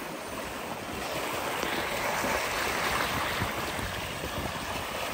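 Steady rush of seawater along the hull of a sailing yacht under way, with some wind.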